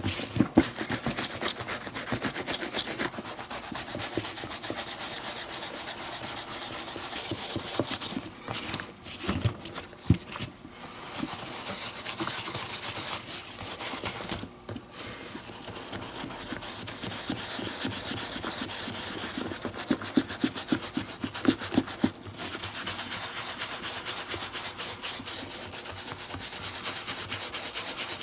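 Small hand brush scrubbing quickly back and forth over the leather lining of a baseball glove, working glove grease into the leather, with a few brief pauses.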